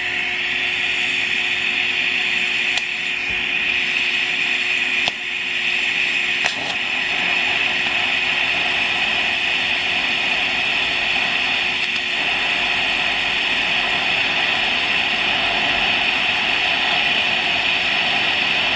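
DC TIG welding arc hissing steadily while filler rod is fed in, with a few sharp ticks in the first half.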